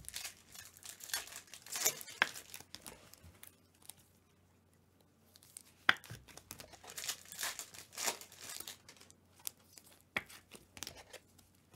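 Foil trading-card pack wrappers crinkling and tearing as packs are handled and ripped open, in irregular crackles and snaps with a quiet pause in the middle.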